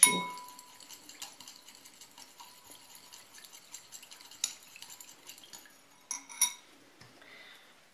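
Metal teaspoon stirring lemon juice and powdered sugar in a small glass bowl to dissolve the sugar: a ringing clink of spoon on glass at the start, then light scraping and faint clinks, and two sharper clinks about six seconds in.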